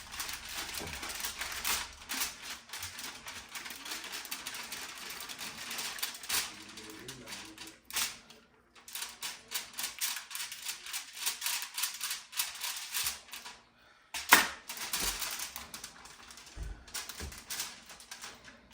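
Knife trimming silver skin from a deer backstrap: a quick run of small clicks and scrapes as the blade works the meat, pausing briefly twice, with one sharper knock about fourteen seconds in.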